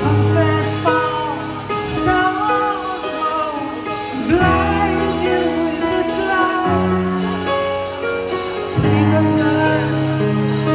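Hard rock band playing live, with electric guitar, bass and drums under the lead singer's vocal. The held chords change every few seconds.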